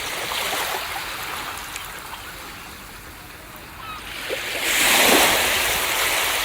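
Ocean surf washing on a beach, with a wave breaking loudly about five seconds in and its wash then dying away.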